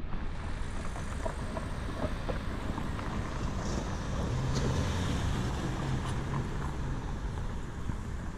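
Wind rushing over the microphone of a moving scooter, mixed with road traffic noise at a city intersection. A low hum swells briefly around the middle, as of a passing car.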